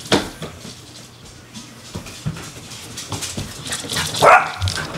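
A long-haired dachshund barks once, loudly and briefly, about four seconds in, amid scattered footfalls knocking on a hardwood floor.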